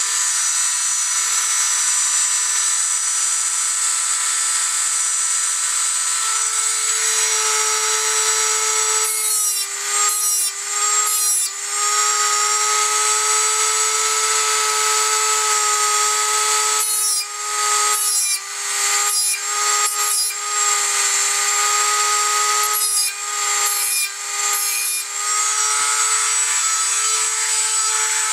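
A small high-speed rotary tool with a cutoff wheel runs with a steady high whine while it sharpens the teeth of a steel bow saw blade. Three times, about a third, two-thirds and four-fifths of the way through, the whine dips and breaks into short rasping strokes as the wheel is dragged up the saw teeth.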